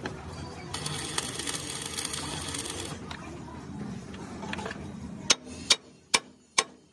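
Stick (arc) welding crackling on a steel truck frame rail for about two seconds, followed near the end by four sharp hammer blows on the steel frame, about two a second.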